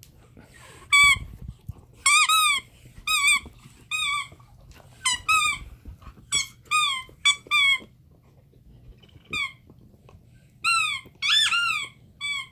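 Red rubber squeaky bone toy squeezed in a pit bull's jaws as she chews it, squeaking about fifteen times in irregular bursts, some in quick pairs. Each squeak is a short note that rises and then falls, with a pause of about a second and a half past the middle.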